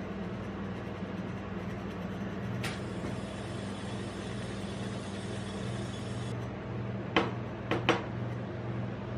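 Steady hum of a rolled ice cream machine's refrigerated steel cold plate running. Near the end, three sharp knocks as a glass milk bottle is set down on the steel pan.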